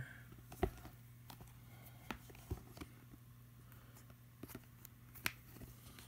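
Faint scattered clicks and taps from handling a tablet and its USB charging cable, over a low steady hum.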